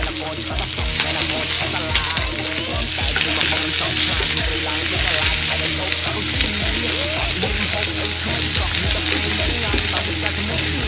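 Sliced onions sizzling steadily in olive oil in a skillet on a gas burner, stirred with a wooden spatula.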